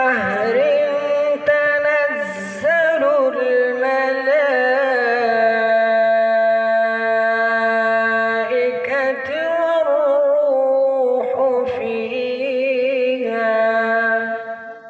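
A man reciting the Quran in the melodic tajwid style, drawing out long notes with a wavering, ornamented pitch in several phrases. The voice fades out near the end.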